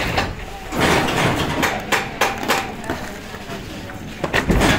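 Plywood-factory work noise: irregular sharp knocks and clacks, several in quick succession in the middle and a louder cluster near the end, over a steady low hum.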